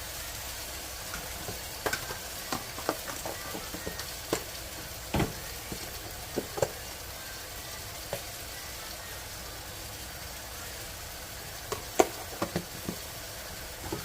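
Sliced zucchini sizzling as it stir-fries in a pan, with a spatula knocking and clacking against the pan at intervals: often through the first half, then again in a short cluster near the end.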